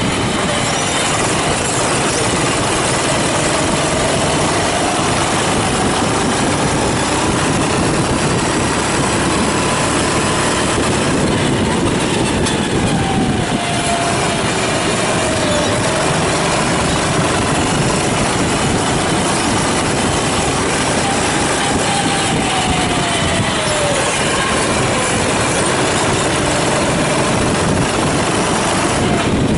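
Racing kart engine running hard on track, its pitch climbing slowly along the straights and dropping sharply into the corners several times, over a steady rushing noise.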